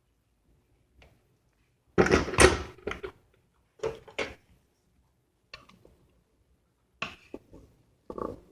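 Kitchen clatter: a string of separate knocks and clanks of a pot, lid and dishes being handled, loudest about two seconds in.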